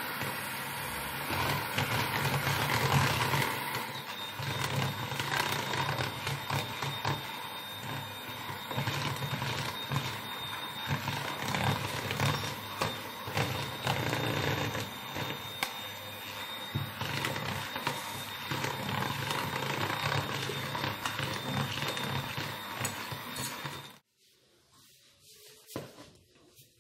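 Electric hand mixer running steadily, its beaters working through a thick butter, sugar and egg dough as cornstarch is mixed in; it switches off abruptly about three seconds before the end.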